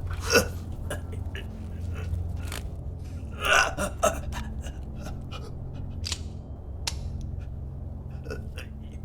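Mouth-made fight sound effects: short vocal gasps and grunts over a steady low hum. The loudest burst comes about three and a half seconds in.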